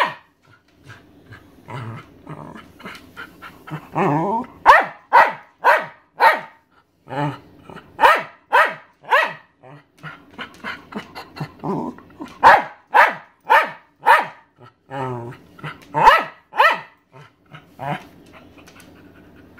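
Welsh Terrier barking over and over in short, sharp barks, about two a second in runs with brief pauses, mixed with a few longer, lower growly sounds. It is demand barking: the dog wants the owner's dinner.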